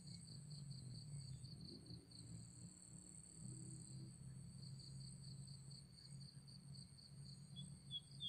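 Faint insects chirring in the grass: a steady high buzz over a pulsing trill, with a run of quick repeated chirps starting near the end.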